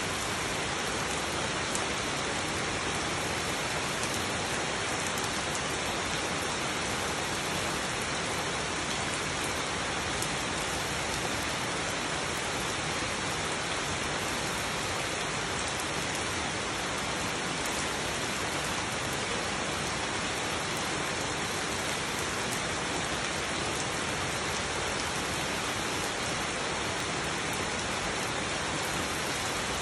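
Steady rain falling on broad leaves and wet, muddy ground, an even unbroken hiss with no thunder.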